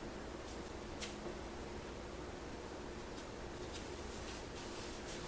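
Faint rubbing and rustling of a cloth rag wiping acrylic antiquing paint off a small cast-resin figure, with a few soft clicks, over a steady low background hum.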